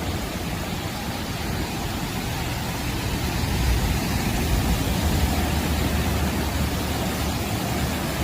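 Steady roar of a rainstorm with strong wind, the wind buffeting the microphone in a low, uneven rumble that swells about halfway through.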